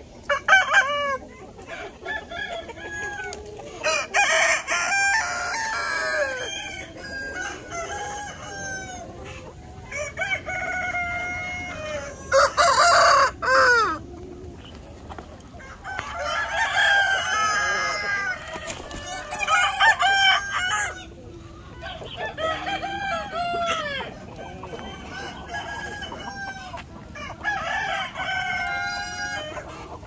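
A large flock of free-range native chickens: several roosters crowing one after another and overlapping, with hens clucking beneath. The loudest crow comes about halfway through.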